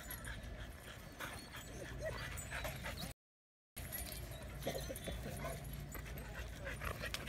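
Dogs whimpering and whining faintly in short, scattered calls. The sound drops out to complete silence for about half a second a few seconds in.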